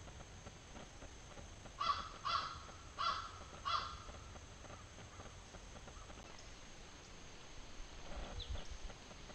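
A bird calling four times within about two seconds, short loud calls starting about two seconds in.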